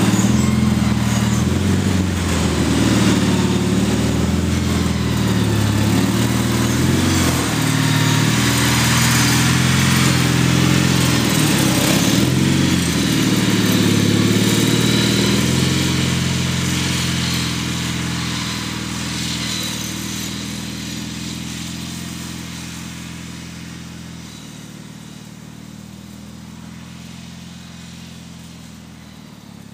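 A Gravely tractor's engine running as it plows snow, its pitch wavering a little, then fading steadily over the second half as it moves away.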